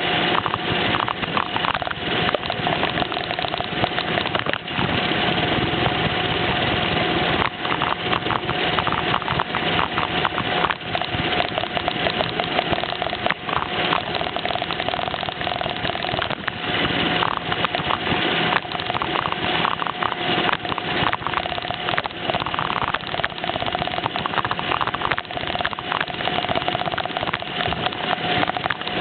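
Roomba robot vacuum running with the microphone riding on it: a steady machine whir with a constant tone and a crackle of small clicks throughout.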